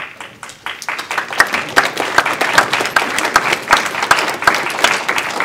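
Audience applauding: many hands clapping, starting suddenly and filling out over the first second into steady applause.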